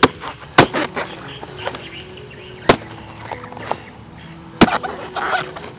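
Machete chopping into a felled palm trunk: four heavy, sharp chops spread over a few seconds, with lighter knocks between them.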